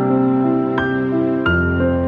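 Slow, gentle background music of held chords, with new notes entering twice, the second time with a deeper bass note.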